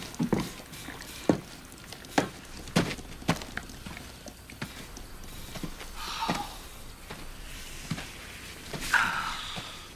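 Heavy boots stepping onto and across dirt: several irregular thuds in the first few seconds, then rustling of a padded jacket twice later on.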